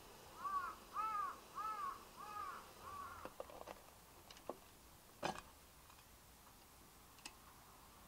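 A crow cawing about five times in a row, fading, followed by a few light metallic clicks from the mess tin's aluminium lid being handled and lifted off, the sharpest about five seconds in.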